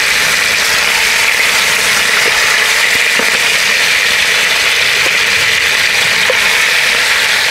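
Oiled chicken pieces searing in a hot cast-iron Dutch oven: a loud, steady sizzle.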